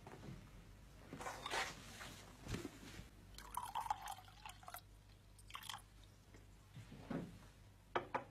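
Faint, scattered small sound effects: a brief scraping about a second in and a low knock, then around the middle a longer wet sipping sound from a cup, and two sharp clicks near the end.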